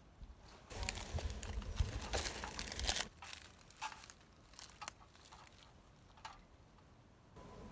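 Crackling, tearing rustle for about two seconds as a knife cuts into a fresh ear of corn among its stripped husk leaves, followed by scattered small clicks and scrapes of the knife on the cob.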